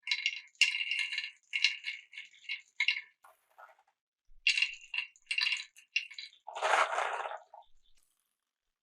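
Glass marbles clicking and clinking against each other in quick, ringing runs, twice, followed by a duller, lower rattle near the end.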